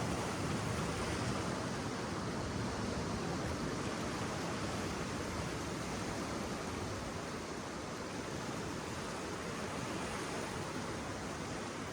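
Steady wash of ocean surf along the shore.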